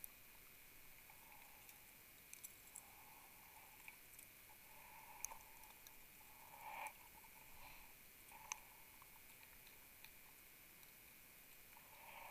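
Near silence through an underwater camera housing: a few faint, muffled swishes and a few small clicks.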